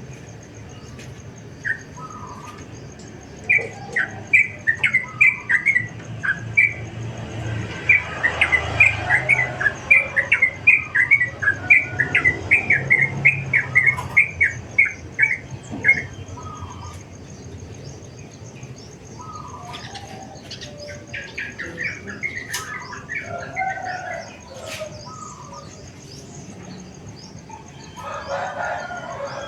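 Several songbirds chirping and calling back and forth, with quick runs of repeated high chirps from about 4 to 16 seconds in and again around 20 to 24 seconds. A faint steady high tone runs underneath, and there is a low rumble in the middle.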